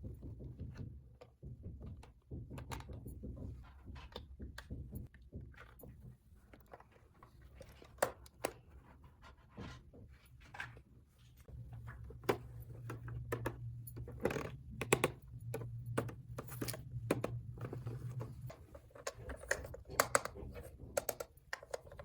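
Irregular small clicks and taps of hard objects being handled, some sharper and louder than others, over a steady low hum.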